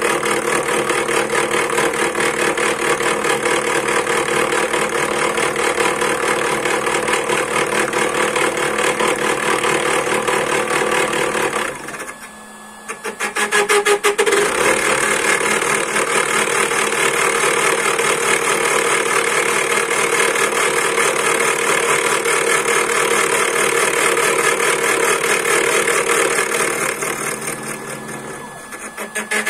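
Homemade CNC machine's spindle driving a 6 mm two-flute flat end mill, running steadily as it cuts a turning wooden blank into a sphere. The cutting noise drops away briefly about 12 seconds in and again near the end.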